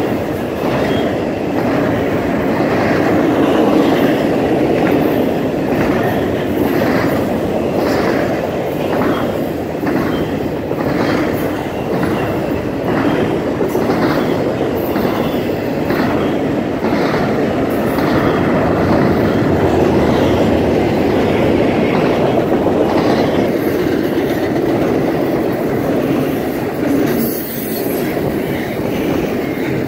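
Norfolk Southern double-stack intermodal well cars rolling past, a loud steady rumble of steel wheels on rail with a regular clickety-clack as the trucks cross rail joints.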